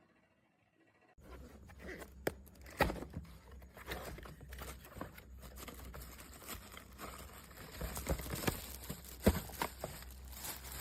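Handling noise: irregular clicks, knocks and rustling over a steady low hum. It starts suddenly about a second in.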